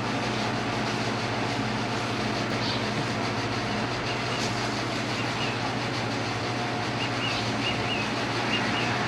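A steady background machine hum with an even hiss, holding constant in level and pitch throughout.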